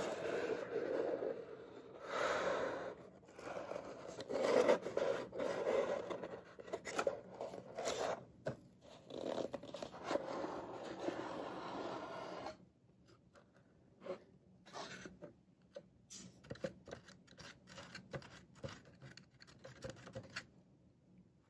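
Fingers scratching and rubbing on a corrugated cardboard box, then the tuck-in lid being worked open. About halfway through the scraping stops, and only faint, scattered taps and light handling sounds follow.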